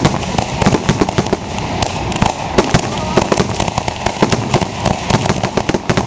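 Aerial fireworks shells bursting overhead: a dense, rapid run of sharp bangs and crackles, several a second, with no pause.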